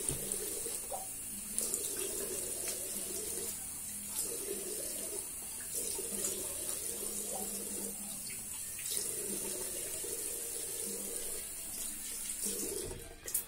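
Bathroom tap running into the sink while water is splashed up in repeated handfuls to rinse shaving lather off the face. The tap is shut off near the end.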